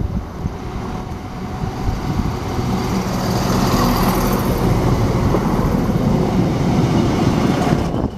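Electric multiple-unit passenger train running past close alongside the platform at speed: a steady rumble of wheels on rail with a rushing hiss that builds over the first few seconds, peaks about three to five seconds in, and holds until it falls away near the end.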